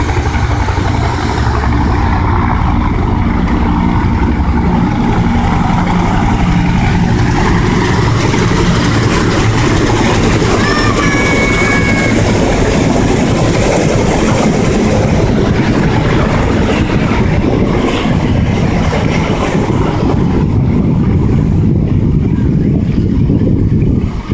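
UH-1 Huey helicopters flying past, the rapid beat of their two-blade main rotors loud and continuous.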